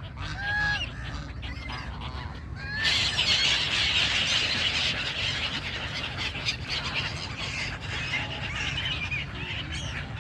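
A flock of migratory waterbirds calling: a few separate calls at first, then about three seconds in a dense chorus of many overlapping calls starts suddenly and carries on, over a steady low rumble.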